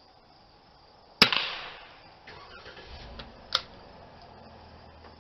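A single shot from a 1957 Winchester Model 77 semi-automatic .22 LR rifle about a second in, loud and sharp, with a short echo trailing off. A second, quieter sharp crack follows about two seconds later.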